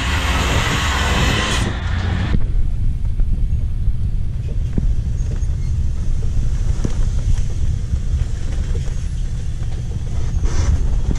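Steady low rumble aboard a shrimp trawler underway at sea in rough weather. A broad hiss covers the first two seconds or so and then cuts off abruptly, leaving only the rumble.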